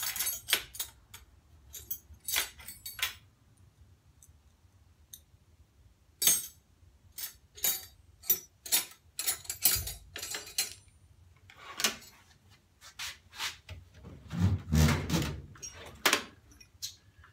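Metal wrenches and sockets clinking and rattling against each other in irregular clusters as they are picked through and gathered up. Near the end there is a louder, closer bump.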